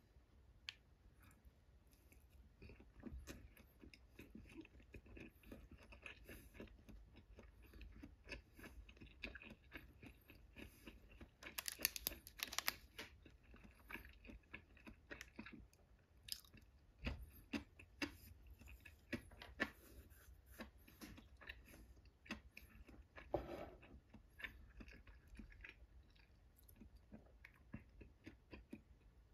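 A person chewing inari sushi close to the microphone: quiet, irregular wet mouth clicks and smacks, with a denser run of louder ones about halfway through.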